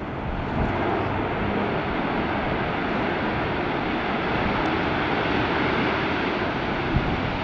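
Jet engines of a Southwest Boeing 737 moving along the runway: a steady, even rush of engine noise with no change in pitch.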